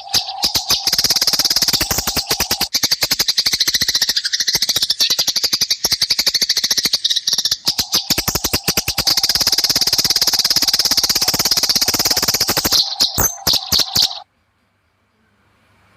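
Eurasian tree sparrows in a fight, giving a dense, rapid run of harsh chattering chirps. It cuts off abruptly near the end.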